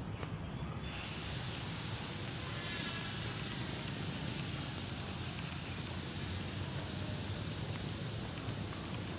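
An insect chirping in a steady, evenly repeating high-pitched pulse, over a steady background hiss and rumble that gets louder about a second in.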